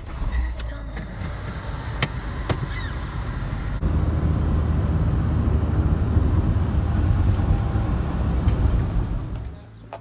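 A car driving, its road and engine rumble heard inside the cabin, louder from about four seconds in and cutting off shortly before the end.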